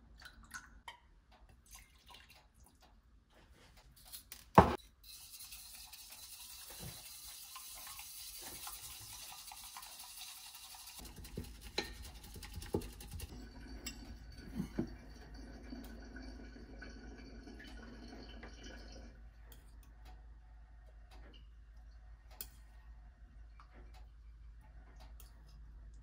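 Small kitchen sounds: a sharp clink of dishware, then several seconds of hissing running or pouring water. After that comes a low steady electric hum with a few light clinks.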